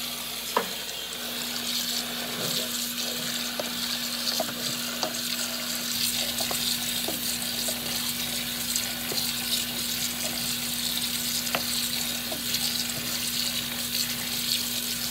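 Kitchen tap running water over cooked noodles in a metal colander in a stainless steel sink: a steady hiss of water, with a constant low hum and a few faint clicks.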